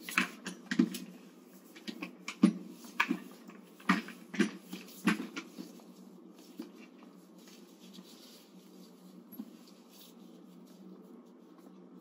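A quick series of light knocks and clicks, about seven in the first five seconds, then only an occasional faint one: handling noise from bath supplies being moved during a bed bath.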